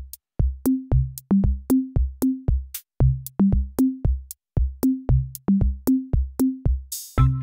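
Electronic background music with a drum-machine beat of deep, booming bass-drum hits and sharp clicks. Near the end a short hissing crash sounds and held synth chords come in.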